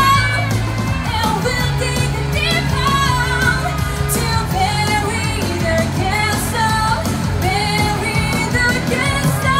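A woman singing live into a handheld microphone over instrumental accompaniment, a melody of held notes with slides between them.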